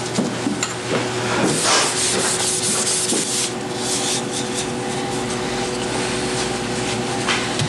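Brush strokes rubbing and scraping through thick black printing ink on a monotype plate, several separate strokes in the first couple of seconds, then steadier rubbing, over a faint steady hum.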